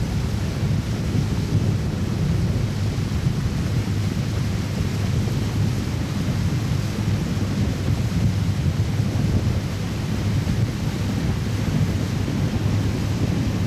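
Steady low rumble of a powerboat running underway, mixed with wind buffeting the microphone.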